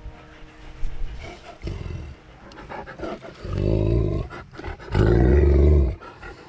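Wolfdogs growling at close range, a series of low growls that grow louder, the longest and loudest about five seconds in.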